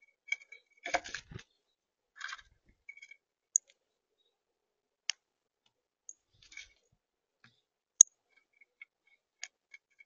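A male northern cardinal and house finches pecking and cracking seed on a plastic feeder tray: scattered clicks and taps with brief scratchy rustles from feet and wings, including one sharp click about eight seconds in.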